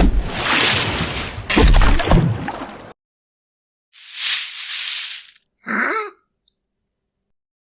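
Cartoon sound effects separated by dead silence: a noisy rushing burst with a few low hits over the first three seconds, a shorter hiss-like burst about four seconds in, and a brief squeaky sound that bends in pitch near six seconds.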